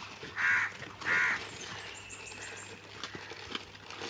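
Two short, harsh animal calls about two-thirds of a second apart, over steady outdoor background noise.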